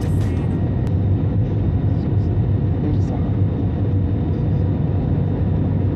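Airliner cabin noise during landing: a steady low rumble of the engines and airflow as the jet comes down onto the runway and rolls along it.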